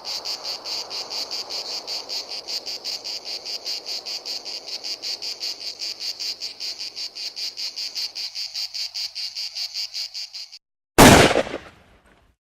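Crickets chirping in a steady, fast pulsing rhythm over a faint ambient hiss, stopping abruptly near the end. A moment later comes a single loud sharp bang with a short fading tail.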